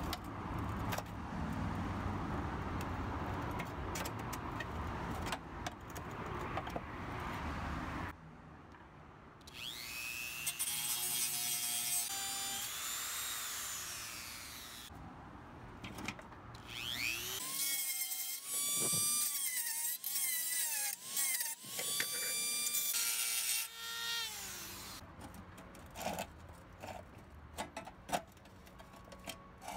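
A screwdriver prying and scraping at the rusty pressed-steel tabs of a toy truck's body and frame, with sharp metal clicks. In the middle come long squeals that waver up and down in pitch, then a few scattered clicks near the end.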